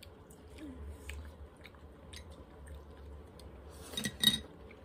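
Chewing crisp lettuce, with faint crunching clicks. About four seconds in, two loud ringing clinks, chopsticks knocking against a dish.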